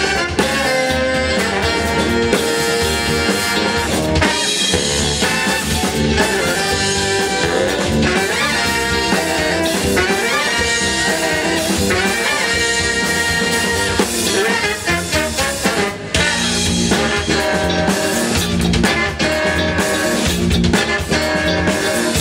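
Live band playing through a PA: a horn section of saxophones and trumpet over electric guitars, drum kit and keyboard, with a steady beat.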